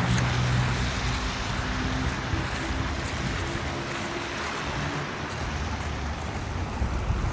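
Steady rushing noise with a low engine hum that fades after about a second.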